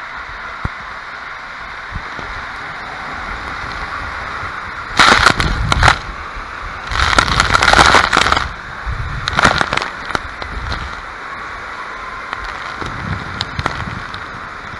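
Water rushing steadily through an enclosed water-slide tube, with loud crackling splashes of water hitting the camera in three bursts, about five, seven and nine and a half seconds in.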